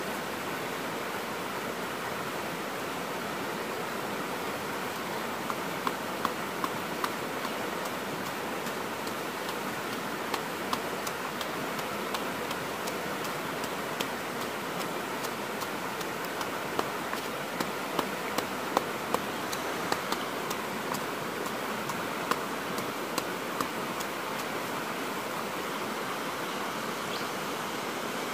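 Steady rushing noise of flowing river water, with scattered sharp clicks in short runs through the middle.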